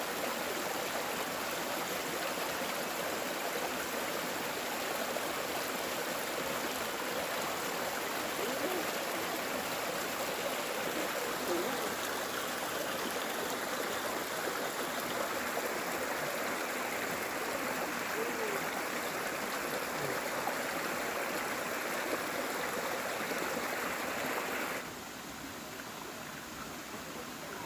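Steady rushing of running water, like a stream. About three seconds before the end it drops suddenly to a quieter level.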